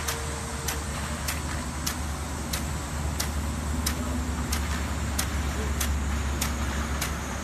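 A 2-inch aluminium-and-brass rain gun sprinkler running at pressure: a steady hiss of the water jet and spray, with a sharp click about every 0.6 s from its drive mechanism as it steps the gun round.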